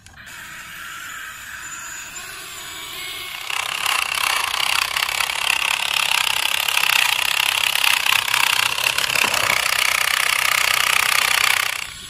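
Small electric motor and plastic gearbox of a toy RC construction vehicle running, a steady buzzing rattle. It grows louder about three and a half seconds in and cuts off just before the end.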